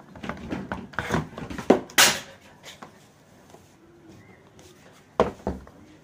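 Plastic casing of a fan heater knocking and clicking as it is handled and pressed together: a quick run of knocks in the first two seconds, the loudest near the end of it, then two more knocks a little after five seconds.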